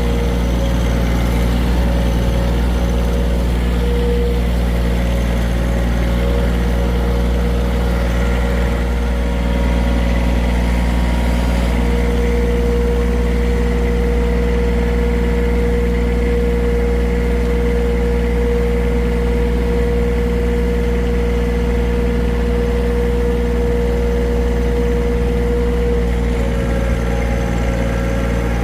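Tractor engine running at a steady speed, with a steady whine over it that grows stronger about twelve seconds in.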